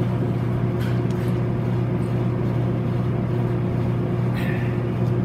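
A steady low machine hum with a few higher overtones, over faint wet squelches of salted cucumber slices being squeezed by hand above a stainless steel bowl.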